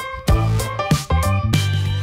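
Background music: an instrumental track with drum hits about every half second over a bass line and guitar-like notes.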